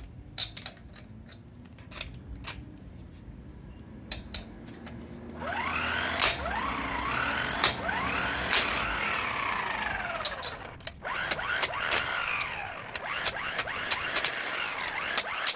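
12-volt electric impact wrench running on a truck's lug nuts to break them loose. It runs in two bursts with a short stop between them, its pitch swinging up and down. A few clicks of the socket being fitted come before it starts, about five seconds in.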